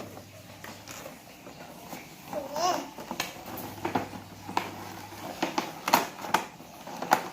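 Plastic toy packaging being handled and opened, giving a string of sharp clicks and crackles in the second half, with a short gliding child's vocal sound about two and a half seconds in.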